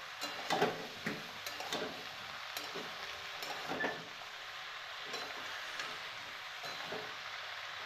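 Chopped vegetables sizzling in a kadai over a high gas flame as a spatula stirs them, with scattered clicks and scrapes of the spatula against the pan.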